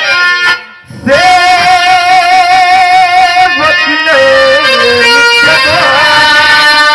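Bhojpuri birha singing: a man's voice holds a long wavering note over the steady drone of a harmonium, then steps down in pitch and rises again. The sound drops out briefly just before the held note begins.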